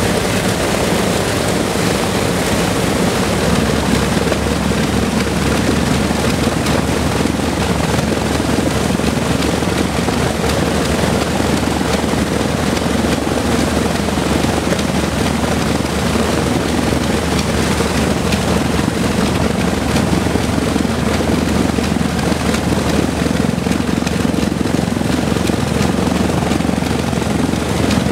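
Lockheed Super Constellation's Wright R-3350 radial piston engines running at idle on the ground, a steady drone and clatter of propellers and exhaust. The low engine note shifts a few seconds in.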